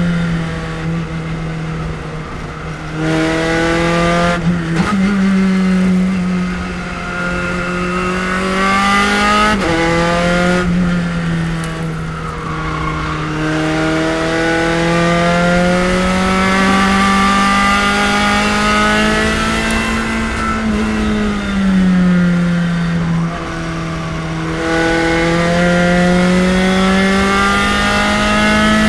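Spec Racer Ford race car's engine at full racing effort. It revs up and drops back repeatedly: the pitch climbs steadily, then falls away sharply several times as the car shifts and slows for corners.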